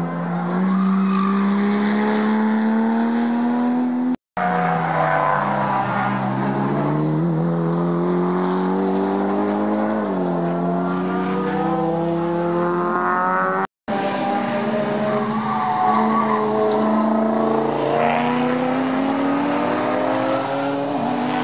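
Sports car engines on a racing circuit as cars take a corner one after another: a Porsche Boxster, then Mitsubishi Lancer Evolutions. The engine note climbs under acceleration and drops as the driver lifts or downshifts. The sound comes in three stretches split by two sudden cuts.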